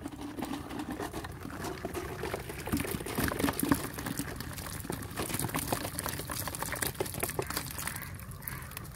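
Water pouring and dripping from a clear plastic jar fish trap into a plastic bucket, then small fish sliding out of the jar's mouth and landing in the bucket with a rapid patter of wet taps and splashes.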